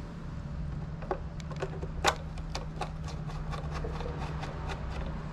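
Hand ratchet clicking in quick, irregular strokes while tightening Allen-head bolts on an engine's timing cover, with one louder click about two seconds in.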